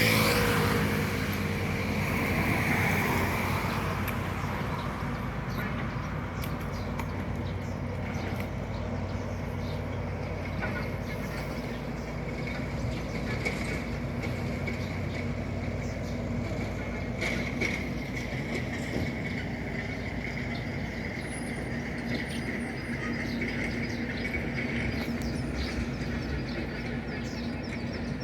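Road traffic: a vehicle passes close by in the first few seconds, followed by a steady engine hum.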